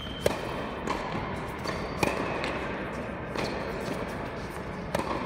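Tennis ball in a doubles rally: racquet strikes and court bounces, a sharp knock every second or so.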